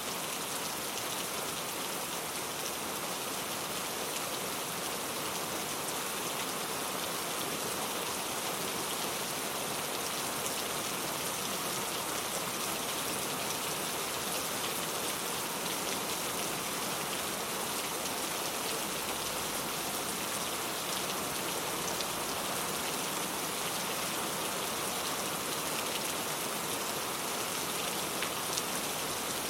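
Steady rain falling on a surface, an even hiss with fine drop ticks, unchanging throughout.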